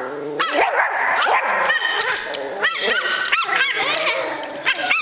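Miniature schnauzer puppy yipping in high, squeaky cries that rise and fall, many in quick succession, with lower barking mixed in during dog play.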